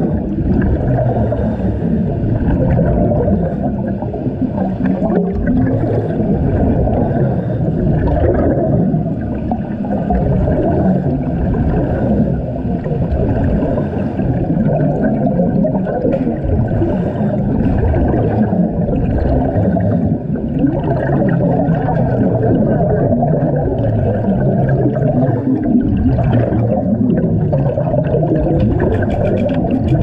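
A diver's exhaled air bubbles rushing and gurgling past the microphone underwater make a continuous low rumble.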